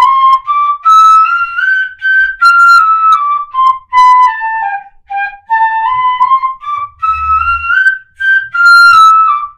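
Pífano (Brazilian wooden fife) in C playing a scale exercise. The notes step up and back down twice, in groups of four, each group with the first note tongued and the other three slurred.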